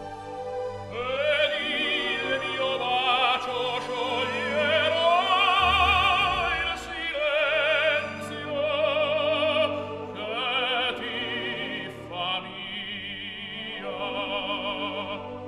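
Operatic singing with a wide, wavering vibrato over orchestral accompaniment, laid over the pictures as background music.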